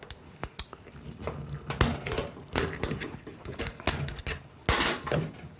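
Snap ring being pried out of a PowerGlide clutch drum with a pick: scattered small metal clicks and scrapes, with a louder scraping rush near the end as the ring comes free.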